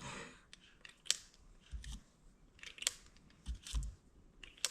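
Brass .357 Magnum cartridges dropped one after another into the chambers of a Ruger GP100 seven-shot revolver's cylinder: a series of short, sharp metallic clicks. The rounds go in freely with no binding.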